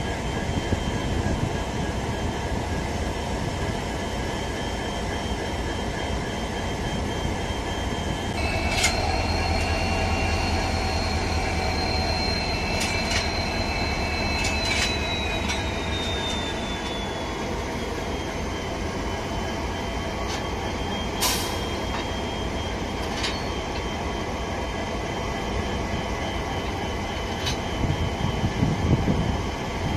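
Standing WDG-4 diesel and WAG-9 electric locomotives running steadily with a low rumble. A high-pitched whine comes in about eight seconds in and slowly falls in pitch a few seconds later. There are a few sharp metallic clicks, with a louder clatter near the end.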